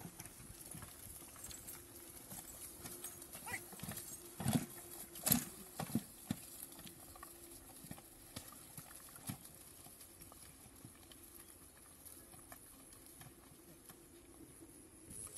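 Horse-drawn carts with loaded straw moving over a harvested rice field: scattered hoof thuds and knocks from the carts, with two louder knocks about four and five seconds in.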